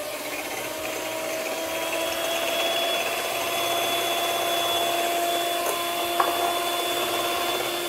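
Electric hand mixer running steadily, its beaters whisking eggs and sugar in a glass bowl. The motor gives an even whine, with one brief click about six seconds in.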